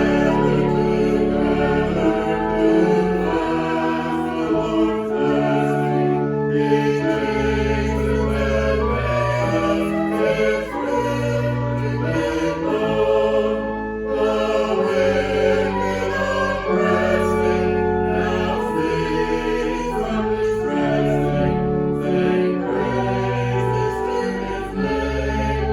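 Choir singing a slow sacred piece in held chords over organ, the chords changing every second or two.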